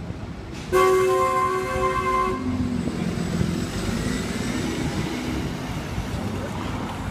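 A vehicle horn sounds once, a chord of several pitches lasting about a second and a half. A city bus then passes with its engine running amid street traffic.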